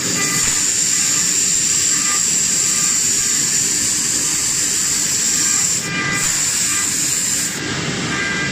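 TR-1530 CNC router spindle carving a relief into a wooden block: a steady high whine over the rasp of the bit cutting wood. The whine breaks off briefly about six seconds in and again near the end.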